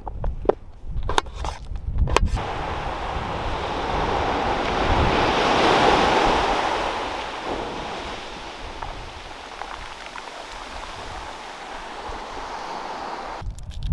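Surf: a wave washes in, swelling to a peak and then slowly fading as it drains back. A few sharp knocks sound in the first two seconds, before the wave builds.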